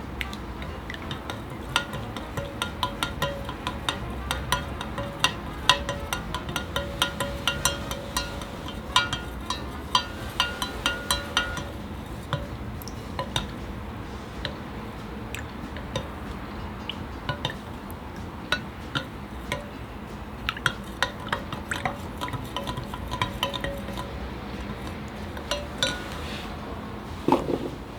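A utensil stirring in a bowl, clinking quickly and irregularly against its side as the mixture is mixed, with one louder knock near the end.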